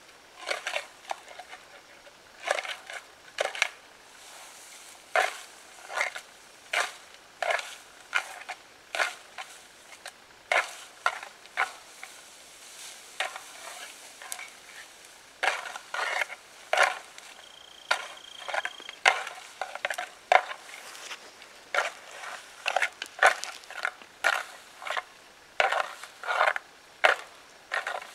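Dry branches of a dead conifer being raked and snapped with a hand-held object, making sharp, irregular cracks and crunches one or two a second. This is how a hunter imitates a bull moose thrashing brush with its antlers.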